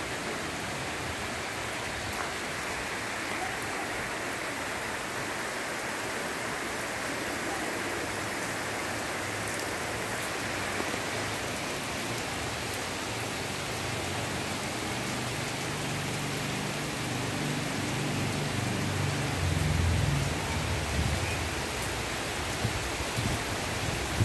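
Heavy rain falling steadily with an even hiss. In the second half a low rumble builds, loudest about twenty seconds in.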